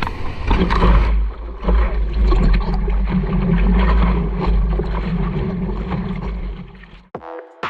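Wind rumbling heavily on the microphone over rushing, splashing water, as from a paddleboard out in the surf. Music starts near the end.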